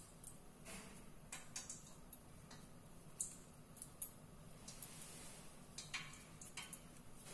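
Faint, irregular small clicks and soft rustles from hands pinching and pleating the edges of a dough round sealed around a moong dal filling, over a faint low hum.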